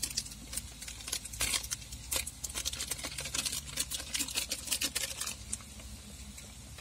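Paper spice packet crinkling and being tapped as fish masala powder is shaken out of it, a quick irregular run of crackles and taps that stops about five and a half seconds in.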